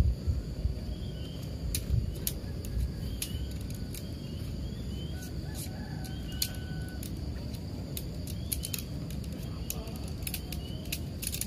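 Sharp clicks and clinks of a sectioned tent pole being handled and folded, coming thicker near the end. Under them is a steady low rumble of wind on the microphone, with a high insect drone and small bird chirps repeating in the background.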